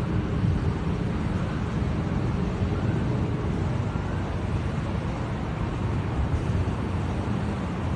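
Steady low rumbling outdoor noise with a fainter hiss above it, and no distinct events.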